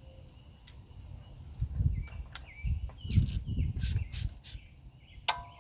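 Metal hand tools clinking and knocking as a spark plug socket is handled and fitted, with a few sharp clicks and a busier run of clinks in the middle.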